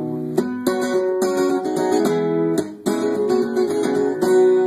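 Acoustic guitar strummed in a steady rhythm, its chords ringing.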